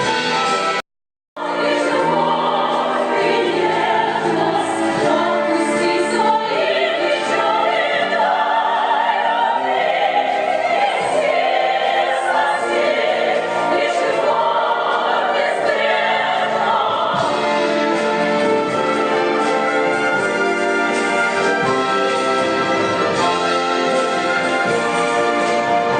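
Singing from a stage musical, with voices over orchestral accompaniment. The sound breaks off completely for about half a second, about a second in.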